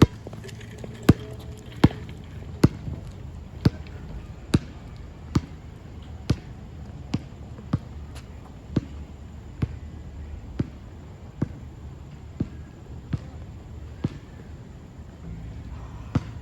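Basketball being dribbled on a court: a steady run of bounces about once a second, with a short pause near the end.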